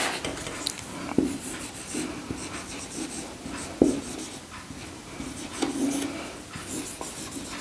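Writing by hand: short scratching pen strokes, broken by about four light taps as the tip touches down.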